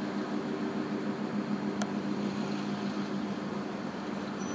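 Steady low drone of ship engines under a hiss of wind and water noise; the drone eases off about halfway through, and there is a faint click near two seconds in.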